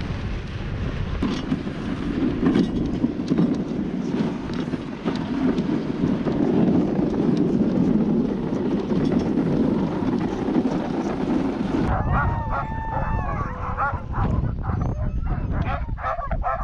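Wind rushing over the microphone of a dog sled running across snow. About twelve seconds in it switches to sled dogs yipping and whining in repeated wavering cries.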